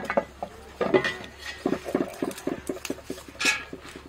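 Small knives scraping the skin off white radishes in short repeated strokes, quickest in the middle.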